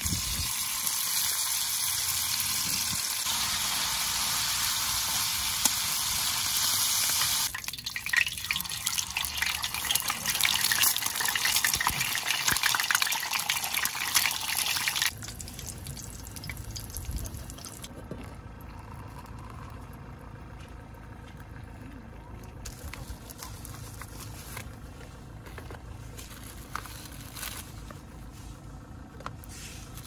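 Portable gas-canister camp stove hissing under a small pot of boiling water, turning crackly and bubbly, then shut off abruptly about halfway through. Afterwards only faint handling clicks remain.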